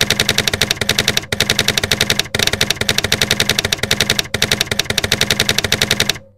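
Typing sound effect: a rapid, even run of key clicks at about ten a second, with a few brief breaks, stopping abruptly near the end as the typed line is finished.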